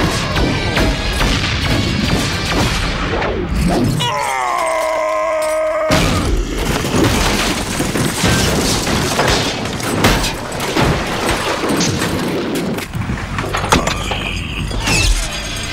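Cartoon battle sound effects over a dramatic score: energy blasts, booms and crashes pile up densely. About four seconds in they break off for two seconds while a falling, pitched wail sounds alone, then the impacts resume.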